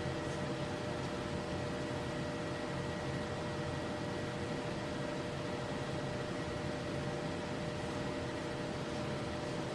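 Electric potter's wheel motor running steadily with a constant hum and hiss while clay is thrown on it.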